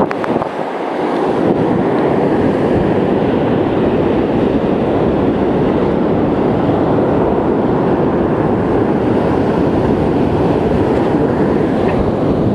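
Steady roar of wind buffeting the microphone, mixed with surf on the beach.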